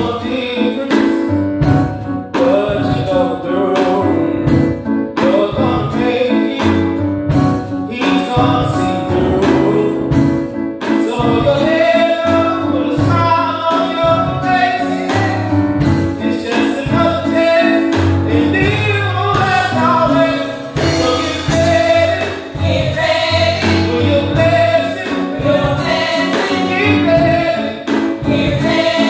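Gospel praise song sung by a four-voice praise team into microphones, over instrumental accompaniment with a steady drum beat.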